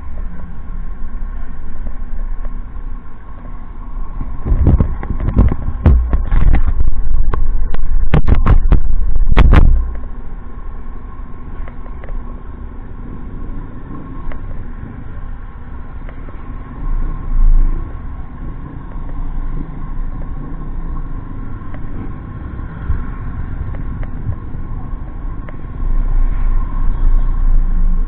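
A motorcycle engine running while stopped at the roadside, with passing traffic. A loud rumbling stretch with knocks comes about five to ten seconds in. Near the end the engine grows louder as the bike moves off onto the road.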